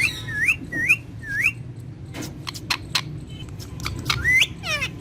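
Ringneck parakeet whistling: three short rising whistles in quick succession, then a run of short sharp clicks, and a rising call followed by a falling squeaky call near the end.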